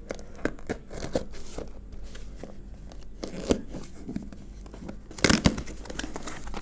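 Razor blade slitting packing tape on a cardboard parcel: a run of small scratches and clicks. About five seconds in comes a louder rip as the tape parts and the cardboard flaps are pulled open.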